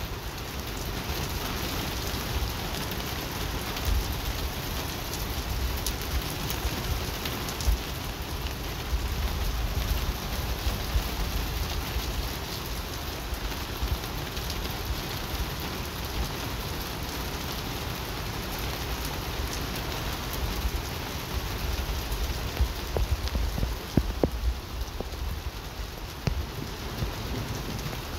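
Steady rain falling, with occasional sharper drops ticking close by.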